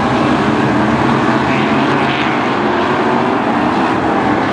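BriSCA F1 stock cars' V8 engines running on the track, a loud, unbroken drone of several cars together.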